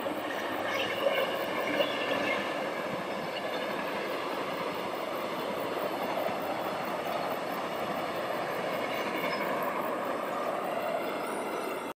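Passenger train passing at speed: a steady rush of wheels on the rails, which cuts off suddenly at the end.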